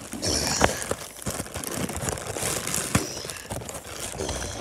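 Packaging crinkling and rustling as it is torn open by hand, with a few sharp clicks.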